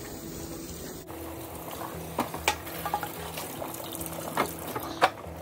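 Kitchen tap running into a stainless steel sink as large portobello mushrooms are rinsed by gloved hands, with a few sharp knocks and splashes as things are handled in the sink.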